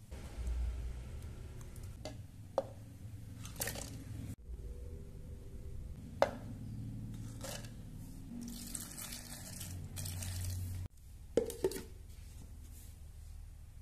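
Pieces of garlic, shallot, candlenut and chili dropping into an empty plastic blender jug, making a few separate light knocks. Near the end comes a pair of clicks as the blender lid is pressed on.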